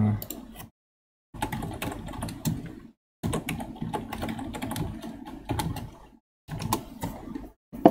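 Typing on a computer keyboard: rapid key clicks in three runs, with short pauses between them. A brief low hum of a voice sounds at the very start.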